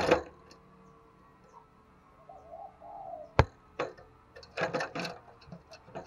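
A spotted dove gives a soft coo a little before the middle, among sharp taps and rustling right at the microphone as the caged bird moves against it; the loudest tap comes just after the coo.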